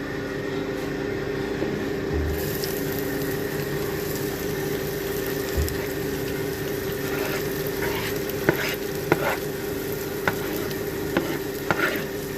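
Food sizzling as it fries in hot mustard oil in a pan, over a steady hum. In the second half a spoon stirs it, with scattered clicks against the pan.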